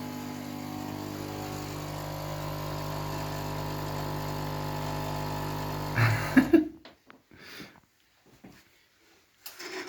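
A steady machine hum with several layered pitched tones, like a small motor running, stops suddenly about six and a half seconds in, right after a few loud knocks. Near silence follows, with only faint scattered sounds.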